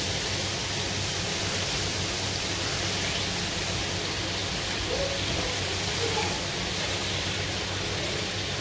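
Breaded chicken breasts sizzling steadily in hot frying oil.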